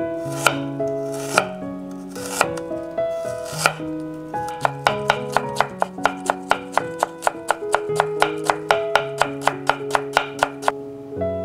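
Steel Global kitchen knife cutting ginger on a wooden cutting board: a few separate knocks, then from about four and a half seconds in a quick, even run of chops, about four or five a second, as the ginger is cut into fine strips. Background music plays underneath.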